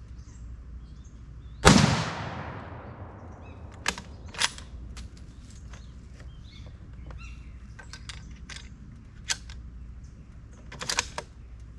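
A single .30-06 rifle shot from a sporterized M1903A3 bolt-action rifle about two seconds in, with a long fading echo. A few sharp clicks follow later.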